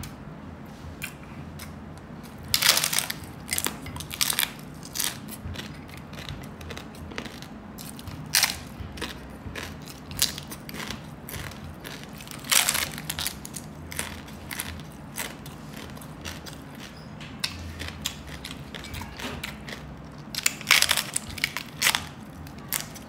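Crisp lechon pork skin being bitten and chewed: loud crunches from bites, with big bursts about 3, 8, 12 and 21 seconds in and smaller crackles of chewing between.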